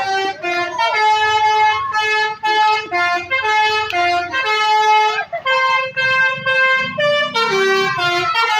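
Indonesian bus 'telolet' musical air horn playing a tune: a run of held horn notes stepping up and down in pitch, with short breaks between phrases. A low engine rumble sits underneath, louder near the end.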